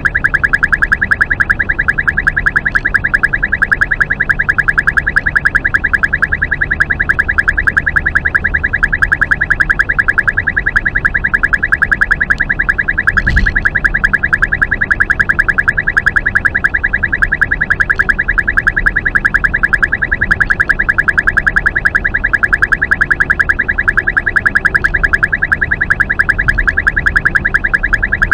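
Uniden R3 radar detector sounding its Ka-band alert, a rapid, steady string of high-pitched beeps without a break. It signals Ka-band police radar detected at 34.6 GHz.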